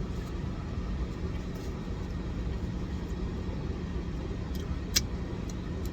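Steady low rumble of a car idling, heard from inside the cabin, with one sharp click about five seconds in.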